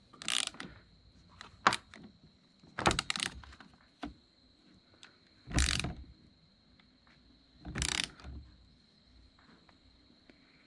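Hand torque tool being set and worked on breaker terminals: short bursts of ratcheting clicks, five or six of them a second or two apart.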